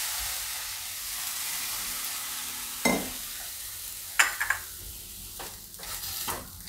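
Hot gram flour and onion mixture sizzling in a nonstick kadai as water is sprinkled in, the hiss fading over the first two seconds. Then a spatula stirs it, knocking and scraping against the pan several times.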